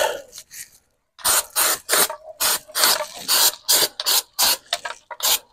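Aerosol can of undercoating sprayed in short, rapid hissing bursts, about three a second, starting about a second in.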